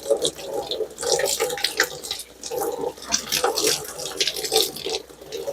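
Kitchen tap running into a sink, the stream splashing unevenly as broccoli florets are rinsed and broken up under it.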